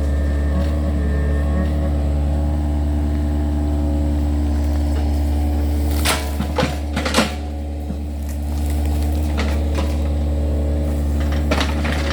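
Yanmar excavator's diesel engine running steadily with a deep hum. A cluster of sharp knocks comes about six to seven seconds in, and a couple more near the end.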